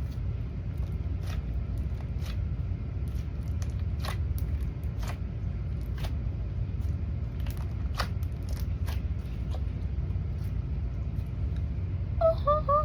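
Slime being mixed and squeezed by hand, giving scattered sticky clicks and pops every second or so over a steady low hum.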